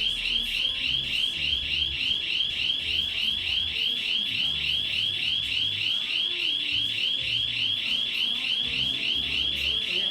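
Electronic panic alarm sounding without a break: a high, rapidly sweeping tone repeating about four to five times a second.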